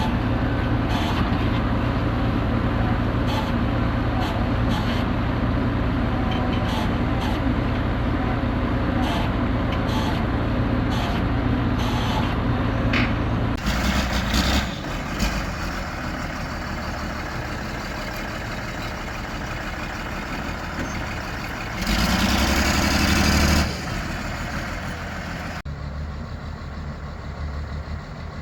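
Heavy diesel engine running steadily, its note changing about halfway through. About two-thirds of the way in comes a loud hiss of air lasting under two seconds.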